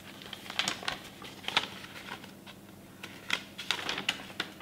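A folded paper sheet being unfolded and handled: short crisp rustles and crackles, a couple in the first half and a quicker cluster near the end.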